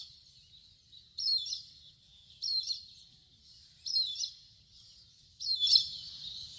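Indian grey hornbill giving short, high squealing calls, four in a row, about one every second and a half.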